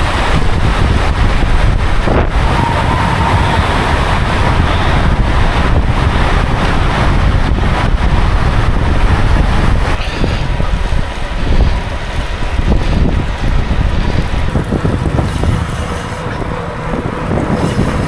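Heavy wind noise buffeting the microphone of a camera on a moving road bike, a loud, unsteady rush that rises and falls.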